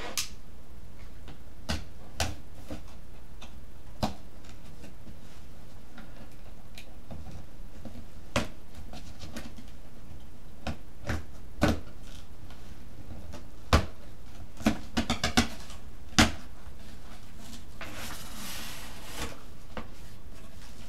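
Cardboard shipping box being opened by hand: scattered knocks and clicks as the packing tape is cut and picked at, with a quick run of clicks about fifteen seconds in. Near the end comes a rustle as the box flaps are pulled open.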